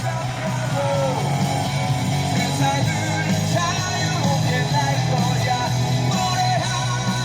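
Rock music with electric guitar and singing, playing loudly and steadily.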